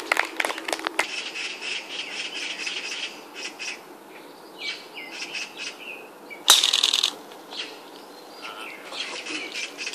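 Golf club striking a ball off the tee: one sharp, loud crack about six and a half seconds in. Birds chirp throughout, and a few scattered claps come in the first second.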